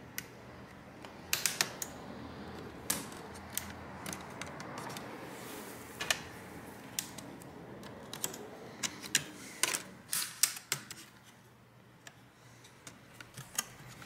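Irregular sharp plastic clicks and taps from a netbook's plastic case and hinge cover being handled, prodded with a plastic pry tool and pressed into place. The clicks come in small clusters, with a quieter stretch near the end.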